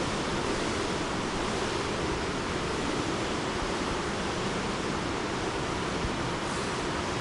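Steady, unbroken rushing ambience of an indoor swimming pool hall, with no distinct events.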